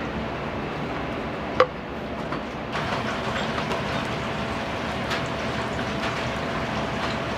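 Steady hiss of kitchen noise with one sharp clack about one and a half seconds in; a little after that the hiss grows slightly louder and a faint steady hum joins it.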